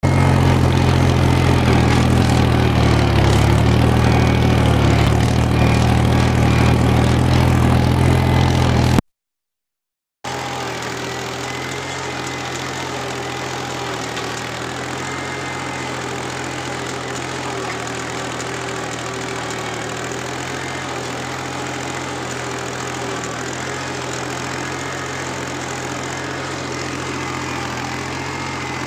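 Old Mahindra 275 DI tractor's three-cylinder diesel engine running steadily while pulling a tine cultivator through the field. It is loud and close at first, breaks off for about a second of silence at a cut nine seconds in, then runs on steadily and quieter.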